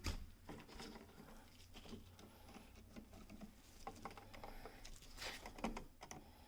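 Faint, scattered small clicks and scratches of pliers working a wire at a light-switch terminal, a little louder about five seconds in.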